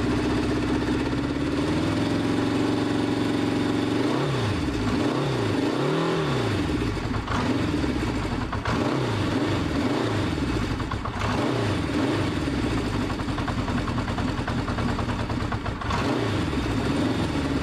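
A freshly rebuilt Honda CB500 Four's air-cooled inline four-cylinder engine running. Its revs rise a couple of seconds in, and from about four seconds the throttle is blipped over and over, the engine note rising and falling with each blip.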